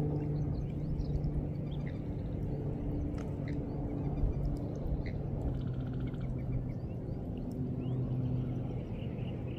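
Open-water ambience: a steady low hum runs throughout, with scattered short bird chirps and a brief bird trill about halfway through.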